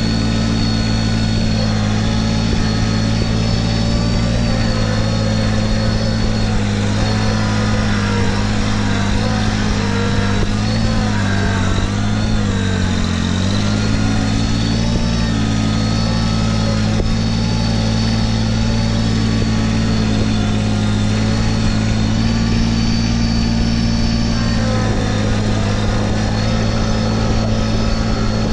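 Kubota BX1880 compact tractor's small three-cylinder diesel running steadily at working speed. Its pitch dips briefly about twelve seconds in, as the engine takes load while the loader pushes into brush and dirt, then recovers.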